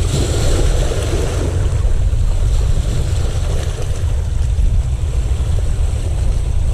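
Wind buffeting the microphone, a steady low rumble over the wash of sea waves.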